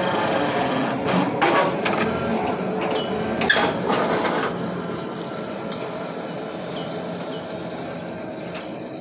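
Hydraulic borewell pipe-lifting rig's engine running steadily, with a run of sharp metallic clanks and knocks over the first few seconds. About halfway through the clanking stops and the engine settles quieter.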